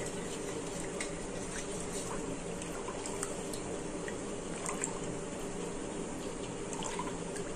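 Spiced tamarind water being mixed in a steel bowl by hand and with a steel spoon: soft sloshing and dripping with small scattered clinks.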